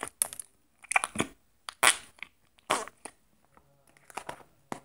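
Hands pressing and squishing a large lump of pink slime, trapped air squelching out in short fart-like noises, about five of them roughly a second apart.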